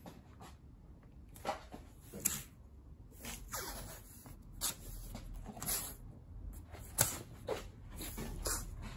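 Masking tape on a steel door's glass edge being rubbed down by hand: a series of short, irregular swishing rubs.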